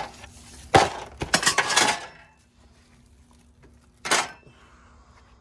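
Clear plastic stretch wrap crinkling and crackling while plastic-wrapped steel welding-table parts are handled and unpacked, with light knocks of the metal pieces. A cluster of bursts comes about a second in and runs for about a second, and one more short burst comes about four seconds in.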